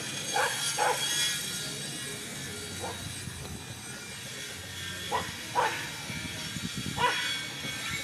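Dog barking: about six short, sharp barks spaced irregularly, two close together at the start, one near three seconds, two just after five seconds and one near seven seconds.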